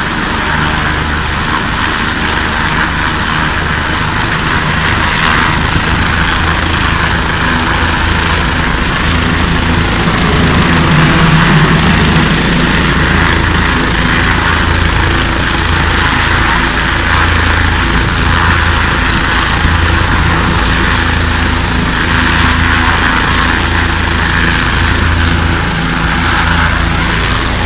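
Bell 407 helicopter running on the ground with its main rotor at speed: a loud, steady turbine whine over the beat of the rotor blades.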